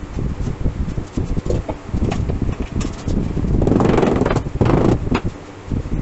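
Rubber mallet knocking a bent plywood band onto a round plywood disc: scattered dull knocks, then a louder run of taps in the second half, over a steady background rumble.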